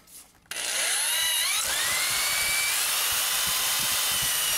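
Ryobi power drill starting about half a second in, its whine rising in pitch and then holding steady and high as the bit bores through the laptop's case.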